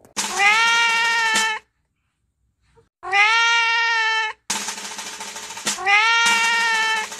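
Domestic cat meowing three times in long, drawn-out calls, each about a second and a half, rising at the start and then held level. Between the second and third meow comes a short harsh, noisy burst.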